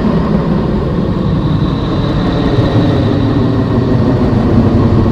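A 'planet sound' from space: a dense, steady low drone with no rhythm, of the kind made by turning spacecraft radio and plasma-wave data into audio.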